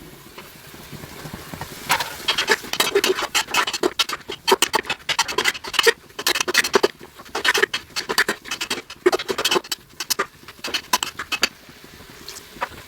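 A spoon stirring and scraping in a cooking pot, a quick irregular run of clicks and scrapes that starts about two seconds in and stops near the end, as freshly added fenugreek leaves are mixed into the masala.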